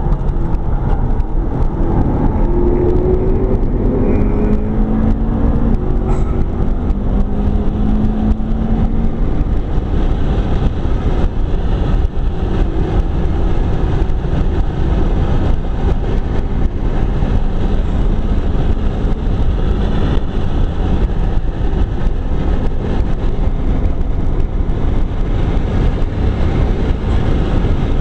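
McLaren 12C's twin-turbo V8 at speed, heard from inside the cabin as a steady loud rush of engine, tyre and wind noise. Its note climbs in steps during the first several seconds, then blends into the roar.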